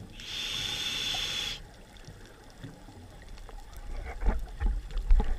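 Scuba regulator breathing heard underwater: the steady hiss of an inhalation through the demand valve for about a second and a half near the start, then the low rumble and crackle of exhaled bubbles toward the end.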